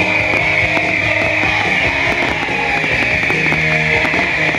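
Firework ground fountains hissing with a loud, steady rushing sound that slowly falls in pitch, with a few faint crackles, over music.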